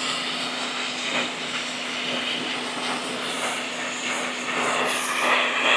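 Greenworks 1900 PSI electric pressure washer running at full pressure: a steady motor-and-pump hum under the hiss of the water jet spraying.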